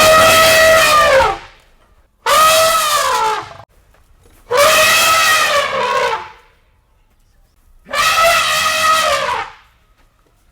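Elephant trumpeting: four separate loud, brassy trumpet calls, each about a second and a half long, rising and then falling in pitch, with short pauses between them.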